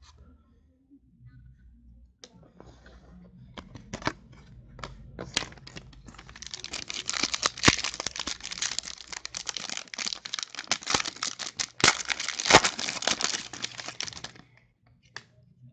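Scattered clicks of trading cards being handled, then from about six seconds in the plastic wrapper of a pack of football cards is torn open and crinkled, with sharp crackles, stopping shortly before the end.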